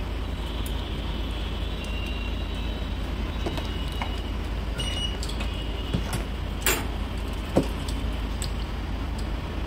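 Steady low hum and hiss of workshop background noise, with a few faint clicks of steel tweezers handling a small IC chip over the work mat in the second half.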